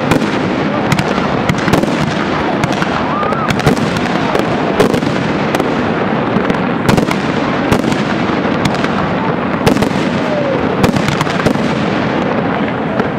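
Aerial fireworks shells bursting: a dense, unbroken run of bangs and crackles, with sharp reports coming many times a second.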